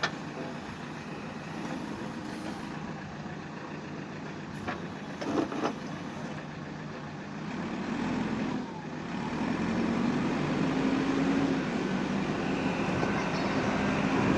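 Heavy road-construction machine's engine running, getting louder about eight seconds in, with a few short knocks near the middle.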